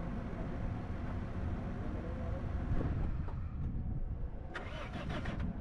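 Car driving along a road: steady engine and road rumble, with a quick run of clicks or rattles near the end.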